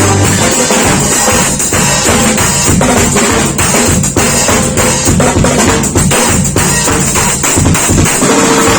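Drum kit played in a fast, dense run of strokes, with the bass drum and snare prominent.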